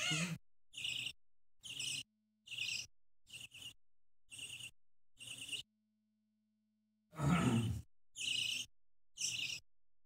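Budgie chicks giving short, repeated begging chirps while being spoon-fed, about one or two a second, pausing for over a second past the middle, with a louder, fuller call about seven seconds in.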